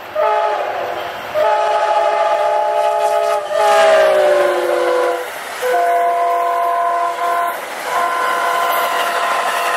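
Amtrak passenger train passing at speed, its locomotive's multi-note air horn sounding in several blasts, one short then longer ones; about halfway through, the chord drops in pitch as the locomotive goes by. Steady rumble of wheels and passing coaches underneath.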